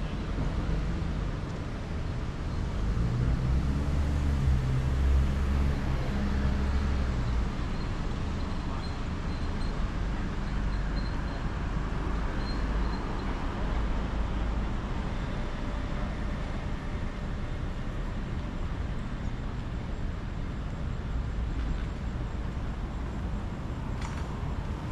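A motor vehicle driving past on a road, its low engine hum loudest a few seconds in and then fading into steady outdoor traffic ambience.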